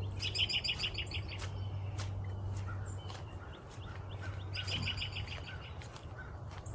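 Wild songbirds singing: a rapid trill of quickly repeated notes sounds twice, at the start and again about four and a half seconds in.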